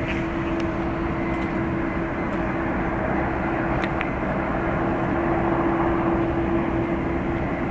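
Boeing 787-10's Rolls-Royce Trent 1000 jet engines running as the airliner taxis along the runway: a steady jet rumble with one held tone, swelling a little in the middle.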